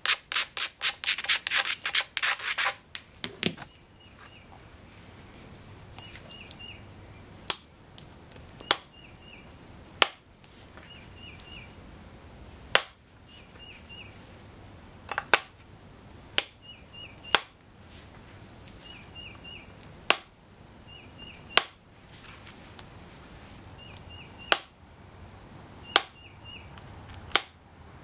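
Pressure flaking a Texas tab chert preform with a copper-tipped flaker: a quick run of scraping strokes for the first three seconds, then single sharp clicks about every one to two seconds as flakes pop off the edge. A small bird chirps a repeated three-note call behind it.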